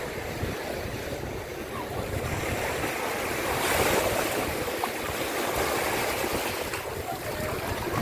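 Small ocean waves breaking and washing over shallow sand, swelling to a louder wash about halfway through.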